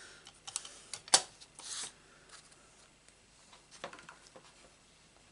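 A few light plastic clicks, one sharp and loudest about a second in, and a short rustle, as a black stamping ink pad's plastic lid is snapped shut and the pad slid aside on the craft mat.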